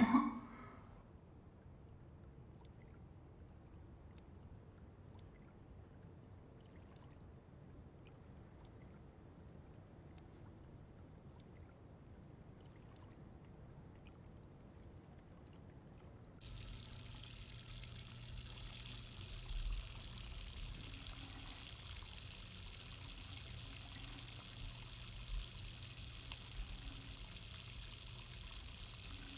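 A short, sharp gasping breath right at the start, then quiet room tone. About sixteen seconds in, a steady rush of running water cuts in abruptly and keeps running.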